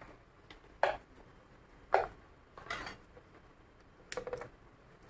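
A few light clicks and taps, four in all spread over several seconds, from hands handling the parts of a disassembled laptop: the display hinge, frame and cables on the bench.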